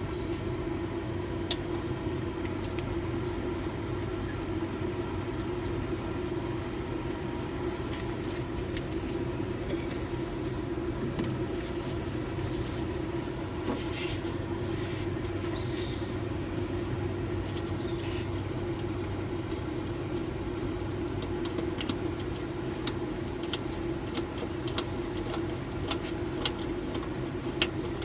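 Steady machine hum with scattered light clicks, the clicks more frequent in the last several seconds.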